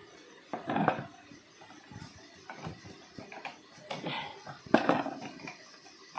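Irregular knocks and clatter of parts being handled and fitted during work on a stand fan, with the loudest knocks about a second in and near five seconds in.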